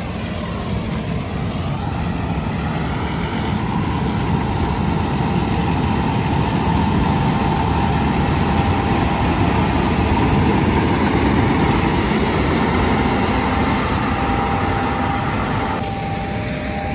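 Heavy farm machinery running steadily, its noise swelling louder toward the middle and easing off toward the end, with a faint steady whine.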